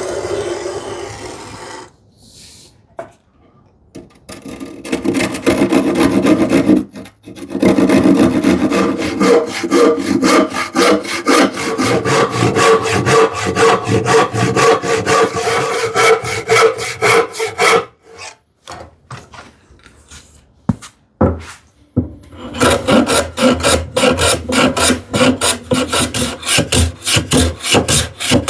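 Hand saw ripping a poplar board: fast, even rasping strokes through the wood, stopping for a few seconds in the middle with a couple of knocks, then resuming.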